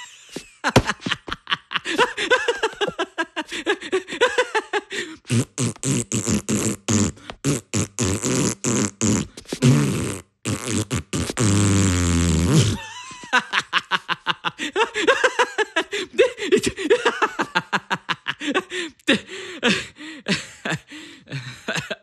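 Cartoon Minion voice blowing raspberries and making rapid sputtering, beatbox-like mouth noises, in long runs broken by a short pause about ten seconds in.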